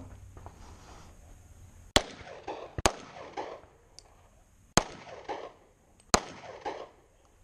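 Four pistol shots from a semi-automatic handgun, unevenly spaced over about four seconds, each followed by a trail of echoes.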